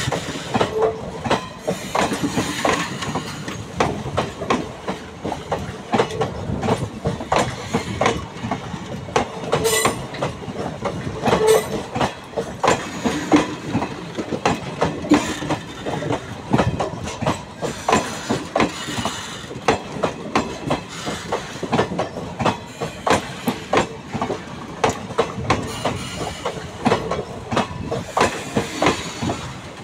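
Passenger train coaches rolling past close by, their wheels clicking over the rail joints in a continuous clickety-clack over a running rumble.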